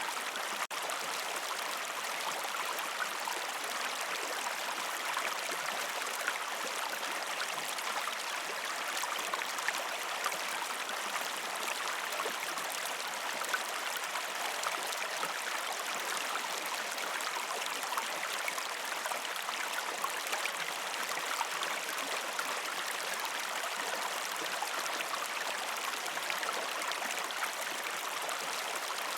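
A shallow river flowing over rocks: a steady rush of water with many small splashes and gurgles. It cuts out for an instant less than a second in.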